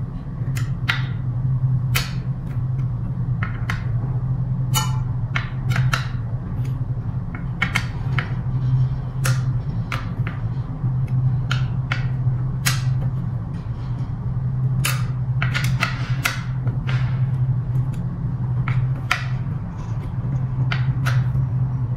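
Irregular sharp metal clicks and ticks of a hex key working the scooter's disc-brake caliper mounting bolts, which are being tightened gently while the brake is held, over a steady low hum.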